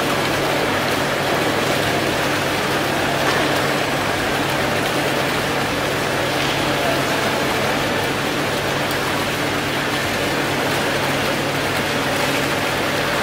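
Fountain jet of water splashing steadily into a pool, an even rushing patter of falling water.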